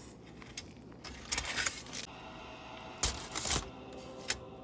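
Food wrapping crinkling while being handled at the table, in two bursts, with a sharp click near the end.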